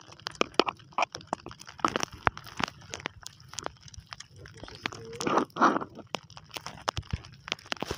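Irregular sharp clicks and light knocks, several a second, from the small wooden outrigger fishing boat and the gear in it, with a short rush of water-like noise about five and a half seconds in.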